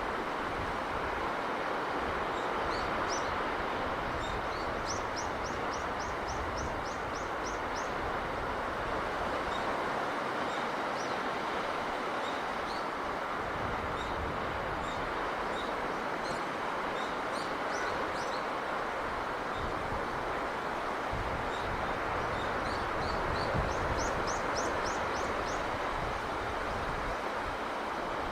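Steady rush of sea breeze and surf. Small birds chirp over it in short, quick trills, about five seconds in and again near the end.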